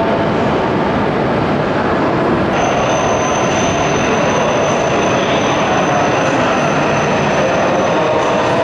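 Shinkansen train, an E5-series Hayabusa coupled to an E6-series Komachi, running alongside the platform with a loud, steady running noise. A thin, high, steady whine sets in about two and a half seconds in and holds.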